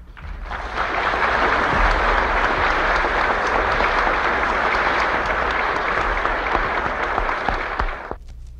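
Audience applauding: dense, steady clapping that swells in over the first half second and cuts off abruptly near the end.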